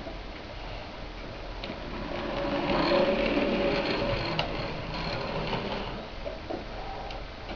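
A model railway locomotive running along the track: the whirr of its small electric motor and gears grows louder from about two seconds in as it comes close, then fades again.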